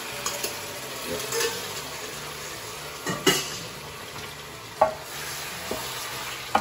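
Marinated chicken strips frying in a hot pan with cooked onion, a steady sizzle. Several sharp knocks, the loudest about three seconds in, as a metal bowl and a wooden spoon strike the pan while the meat is tipped in and stirred.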